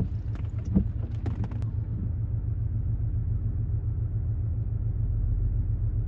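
Steady low rumble with a few light clicks in the first second and a half.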